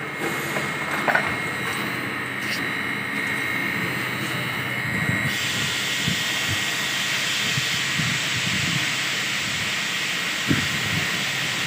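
Steady hiss of workshop machinery with a thin high whine, turning brighter and louder about five seconds in. A few short knocks stand out, one about a second in and one near the end.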